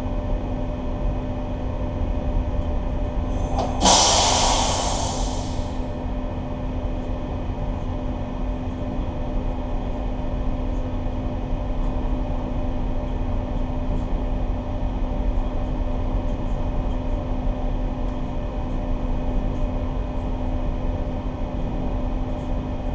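Steady drone of a towboat's diesel engines, a low rumble with a constant hum. About four seconds in, a brief loud hiss rises and fades away over a couple of seconds.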